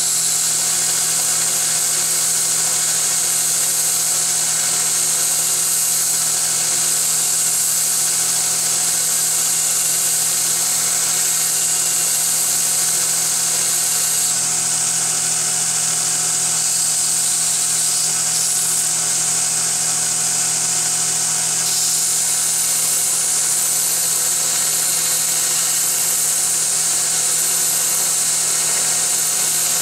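Belt grinder running steadily with a steel cutter head held against the belt, a continuous grinding hiss over a constant motor hum. The back of the cutter body behind its carbide inserts is being ground away for clearance, so the body won't drag on the work.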